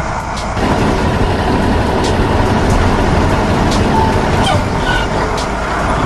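Heavy truck engine running steadily, a little louder from about half a second in: a truck sound effect laid over a toy dump truck tipping its bed.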